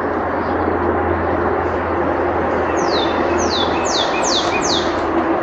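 Steady rushing road-traffic noise with a low hum throughout. About three seconds in, a songbird calls five quick high notes, each sliding down in pitch.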